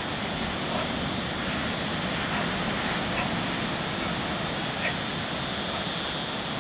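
Steady rushing outdoor noise with a faint high whine above it and no distinct events.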